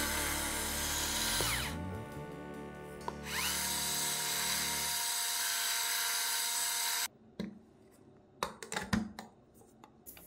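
Rechargeable electric spice grinder's motor whirring as its ceramic burr grinds spice. It winds down after a couple of seconds, starts up again about a second later, and runs steadily until it cuts off suddenly around seven seconds in. A few light clicks and taps follow.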